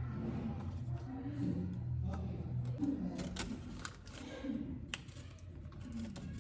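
Spatula scraping and tapping brownie batter from a bowl into a baking dish: a string of short scrapes and clicks, over a low hum with short pitched notes.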